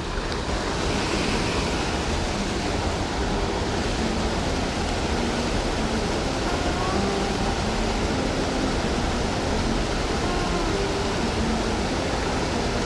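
Water pouring over a small spillway: a steady, even rush.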